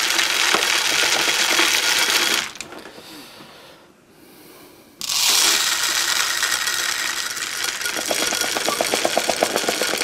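Mixed bird seed with chunks of cracked corn poured through a plastic funnel into a plastic pop bottle, a dense rattling hiss of grains striking plastic. It drops away for a couple of seconds in the middle, comes back sharply, and near the end breaks into rapid fine ticking as grains patter in.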